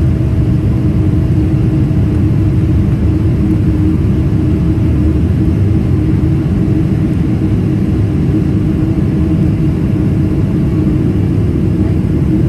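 Cabin noise of a Boeing 777-300ER climbing out after takeoff, heard over the wing: its GE90-115B engines and the rushing air give a loud, steady low rumble with a constant hum.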